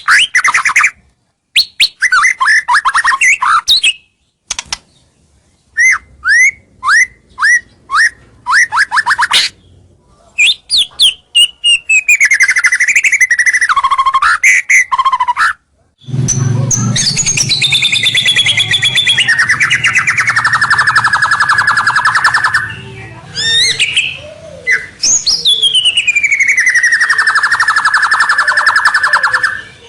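White-rumped shama singing loudly and continuously. It gives quick runs of repeated chirps and whistled notes, then from about halfway a long, harsh, buzzing rattle mixed with sweeping whistles, ending in a long falling whistle. This is a vigorous territorial song of the kind used as a lure to draw rival males in.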